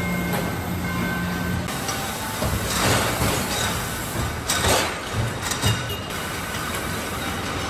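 Car assembly plant machinery: a steady low hum that stops about a second and a half in, then two short bursts of air hiss, like pneumatic tools or air lines, and a few clicks.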